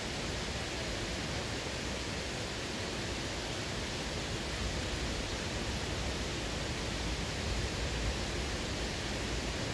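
Steady, even rush of flowing water with no distinct events.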